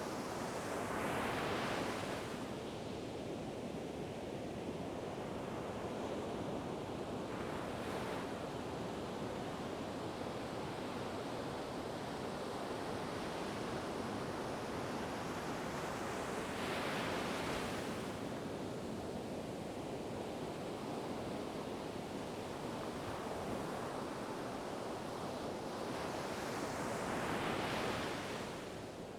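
Ocean waves breaking and washing ashore in a steady rush of surf, with a wave cresting louder about every eight to ten seconds, four times in all.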